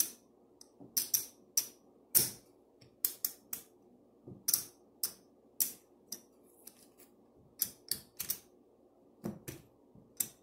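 Casino chips clicking against each other as they are picked up, stacked and set down on a craps table: a run of sharp, irregular clacks.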